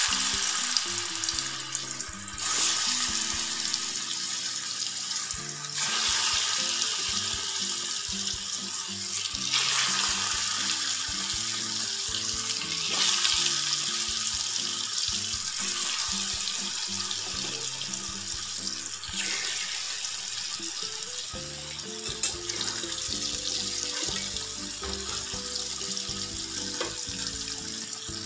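Boiled taro (sola kochu) slices sizzling as they deep-fry in hot oil in a kadai. The sizzle swells sharply each time another slice goes in, about six times, then runs on steadily.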